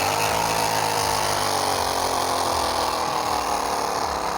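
Bicycle fitted with a homemade plastic-bottle noise-maker, the wheel turning to give a loud, continuous motorbike-like buzzing rattle whose pitch sinks slightly.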